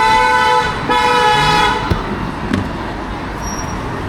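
A vehicle horn honks twice, a short toot then a longer one, over steady street traffic noise.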